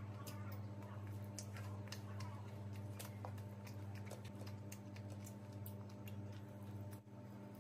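A person eating chicken curry and rice by hand: scattered short, wet clicks and smacks of chewing, with fingers squishing through the rice, over a steady low hum.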